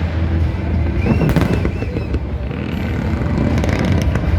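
Aerial fireworks bursting in a dense, continuous run of low booms, with a cluster of sharp crackles about a second in.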